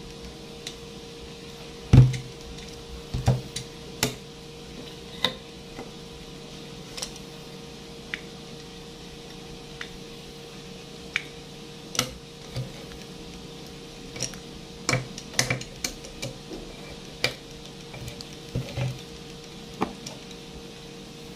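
Hand-held can opener worked on a tin can: irregular metallic clicks and knocks as the opener bites and grips the rim, the loudest about two seconds in and a busier stretch in the second half. A steady faint hum runs underneath.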